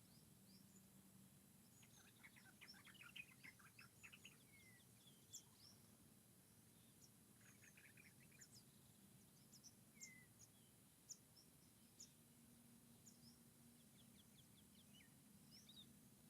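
Faint forest birdsong: several small birds give scattered short, high chirps, with two bursts of rapid trilling about two seconds in and near the middle, over a faint steady low hum.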